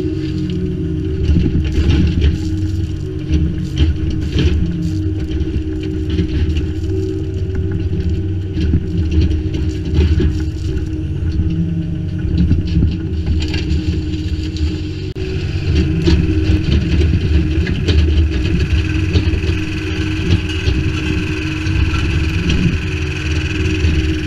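Kubota U25-3 mini digger's diesel engine running steadily under load while its grading bucket scrapes and crunches through loose Type 1 crushed stone, spreading it level.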